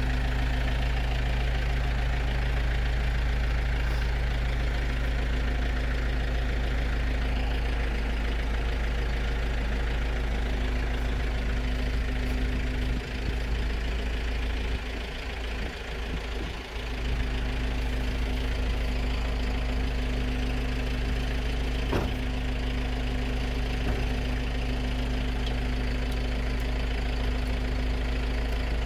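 A steady low mechanical hum from a running motor, thinning out for a few seconds around the middle, with a few faint knocks.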